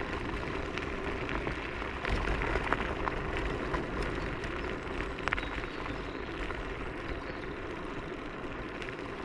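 Techlife X7S electric scooter riding over a rough trail: steady tyre and wind noise on the action camera's microphone, with frequent small clicks and knocks as it goes over bumps, a little louder about two seconds in.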